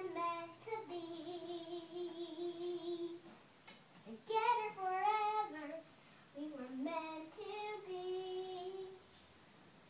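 A young girl singing in a high voice: three phrases of long held notes with short breaks between them.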